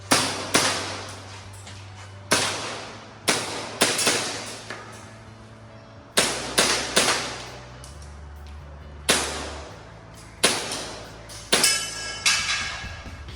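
Airsoft pistol fired in a rapid string of about seventeen shots, in pairs and small clusters with short pauses between groups. Each shot is a sharp crack that trails off briefly.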